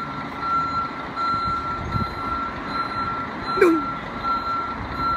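Reversing alarm on a MAN fire engine beeping steadily, nearly two beeps a second, over its diesel engine running as it backs up. A short squeal sliding down in pitch cuts in about three and a half seconds in.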